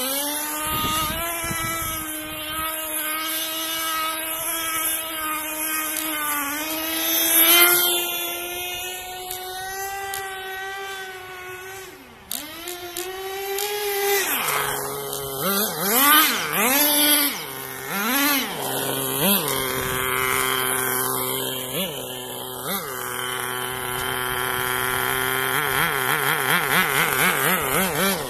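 Small nitro engine of a radio-controlled car running at high revs as the car drives about, holding a steady high pitch for long stretches. About twelve seconds in the note drops and nearly fades, then comes a string of short throttle blips, rising and falling, before it settles into a long steady run again near the end.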